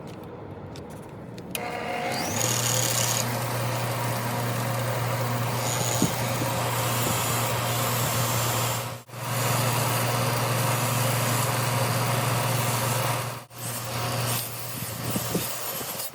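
A small electric power tool running steadily with a low motor hum and a rushing, abrasive noise. It starts about two seconds in and cuts out briefly twice.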